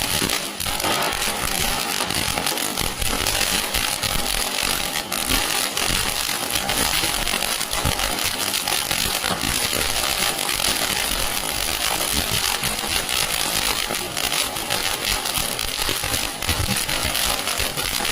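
Supreme Spectra colour anar, a flower-pot fountain firework, burning with a steady loud hiss and dense crackling throughout.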